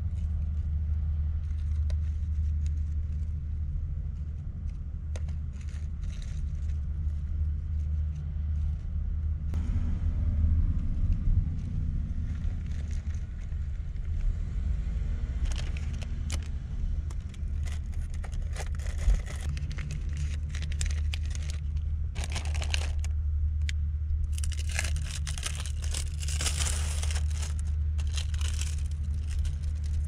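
Plastic food packaging crinkling and rustling as hands handle a bag of lettuce and peel the film off a cheese slice, coming in bursts, busiest in the second half. Under it runs a steady low rumble.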